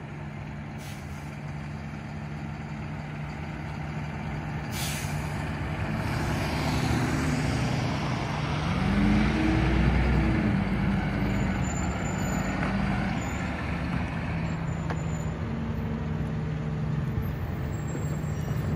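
Diesel engine of a Leach rear-loader garbage truck running, its pitch rising as it pulls forward about nine seconds in and then settling back to a steady run. Two short air-brake hisses come about one and five seconds in.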